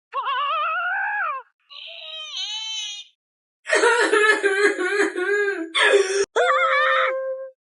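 Four stock 'Mac scream' sound effects in a row: a wavering yell, a higher cry with falling pitch, a long loud harsh scream, and a last yell that ends on a held note.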